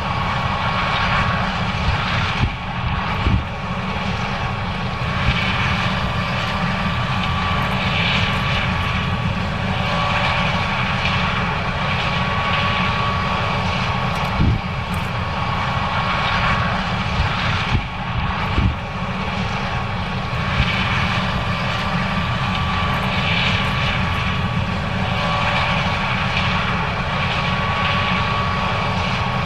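John Deere S790 combine running steadily while harvesting corn: a constant mechanical drone with a held high whine over a low rumble, and a few short knocks.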